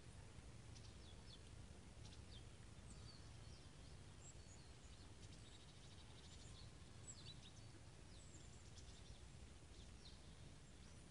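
Faint chirps and short slurred calls of small songbirds, scattered and overlapping, over a low steady rumble.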